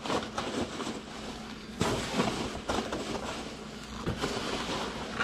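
Polystyrene shipping peanuts and plastic wrapping rustling and crinkling as hands rummage through a cardboard box, with a few sharper crackles along the way.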